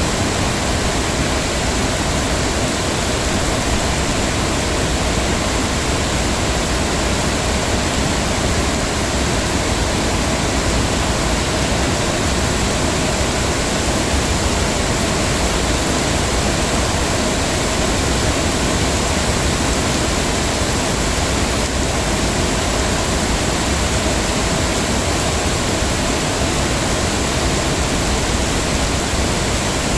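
Heavy rain falling steadily, a dense even hiss with no distinct drops or pauses.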